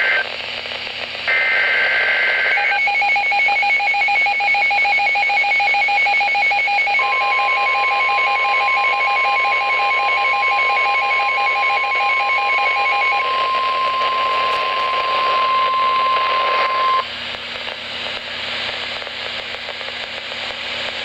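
NOAA Weather Radio Emergency Alert System sequence. Two warbling digital SAME header bursts give way to a fast pulsed electronic beeping. About seven seconds in, the steady 1050 Hz weather-radio warning tone joins it and cuts off after about ten seconds, leaving radio hiss.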